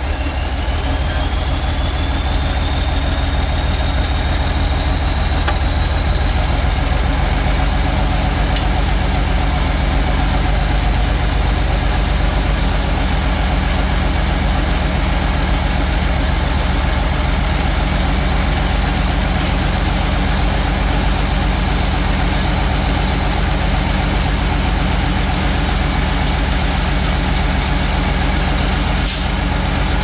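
Heavy diesel earthmoving machinery running steadily, its engine rumble overlaid by a high whine that climbs over the first couple of seconds and then holds. A short sharp click sounds near the end.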